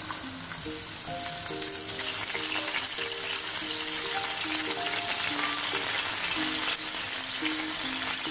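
Chicken pieces sizzling in hot oil in a frying pan on high heat, the sizzle growing louder from about two seconds in, with a few light clicks of metal tongs. A simple background music melody plays over it.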